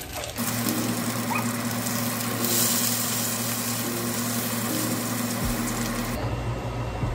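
Salmon fillets sizzling in olive oil in a frying pan over a steady low hum. The sizzle grows louder about two and a half seconds in, as the fillets are turned over with tongs.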